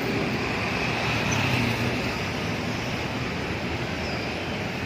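Steady road traffic noise: vehicles running past on a busy road, with no single horn or engine standing out.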